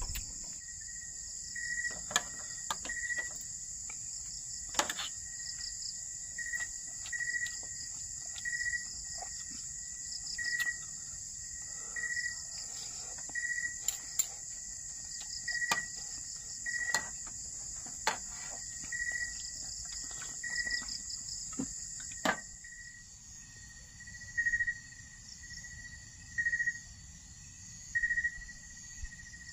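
Steady high-pitched insect chorus, crickets among it, with a short chirp repeating about once a second on a single pitch and a few sharp clicks here and there.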